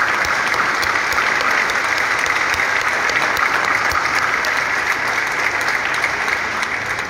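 Audience applauding: dense, steady clapping from a large seated crowd, dying down at the end.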